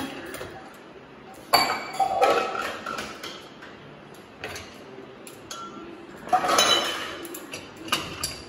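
Stainless-steel pots and tumblers clinking and clattering as a dishwasher is unloaded, in several separate bursts with a short metallic ring, the loudest about a second and a half in and again just after six seconds.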